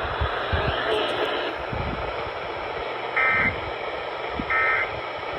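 Hissy radio static from a receiver, broken in the second half by two short bursts of EAS digital data tones a little over a second apart: the End-of-Message code that closes an emergency alert.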